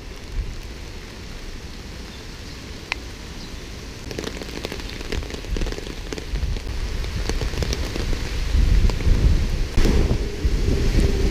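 Steady rain falling on pavement, with scattered ticks of individual drops. A low rumble builds in the last few seconds.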